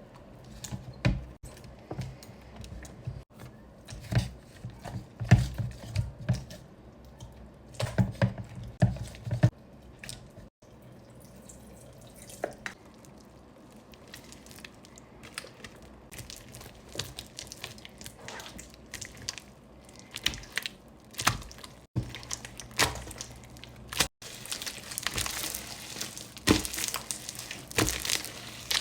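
Slime being squeezed and worked by hand: irregular wet, sticky clicks and pops, growing into denser crackling in the last few seconds.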